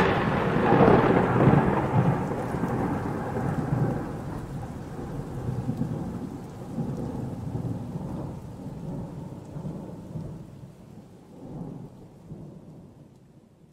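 Thunder sound effect: a thunderclap's rumble, loudest at the start and slowly fading away, dying out near the end.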